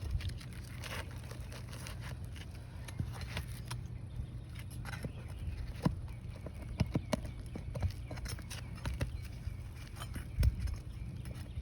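Irregular sharp knocks and clicks of hand tools working asphalt roof shingles, over a steady low rumble, with a louder cluster of knocks about six to seven seconds in and again near the end.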